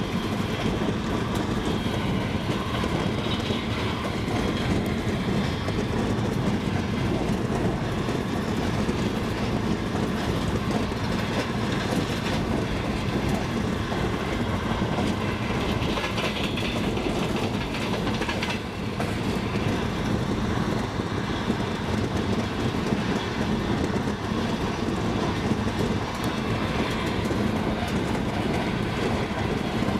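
Double-decker passenger train running steadily, its wheels clattering over the rail joints over a continuous rolling rumble.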